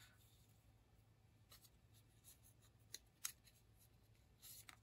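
Faint clicks and rubbing of small plastic model-kit parts being handled and fitted together, with a few short ticks and one sharper click about three seconds in.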